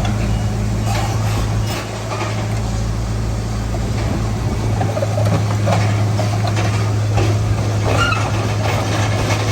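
Heavy diesel engine running steadily, with scattered metallic clanks and knocks over it.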